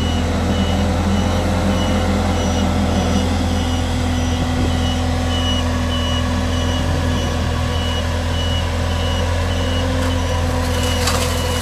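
Mathieu MC110 compact street sweeper running steadily with its hopper tipped up to dump, while a high-pitched warning beeper sounds on and off at an even pace. There is a brief rattle near the end.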